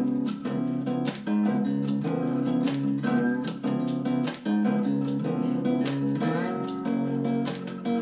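Strummed acoustic guitar music played through a Sony SRS-X11 compact portable speaker, with hardly any deep bass.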